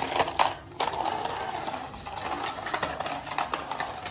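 Remote-control stunt car running: its small electric motors whirring with rapid, irregular clicking and clattering.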